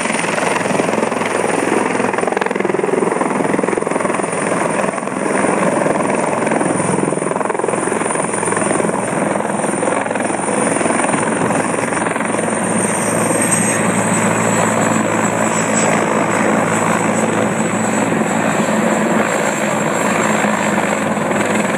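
Fire-brigade rescue helicopter's turbine engine and rotor running loud and steady as it sets down on the landing pad and keeps turning on the ground. A high turbine whine drops slightly in pitch about two-thirds of the way through.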